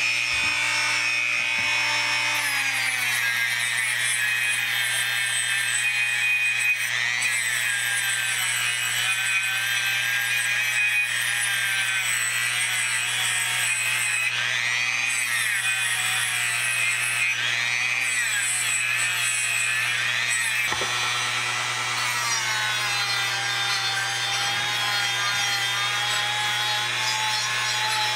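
Dremel variable-speed rotary tool spinning a Scotch-Brite abrasive pad against brass and metal parts, scuffing and polishing them. Its high, steady whine dips and rises in pitch again and again as the pad is pressed on and eased off, with a brief knock about two-thirds through, after which the whine runs a little lower.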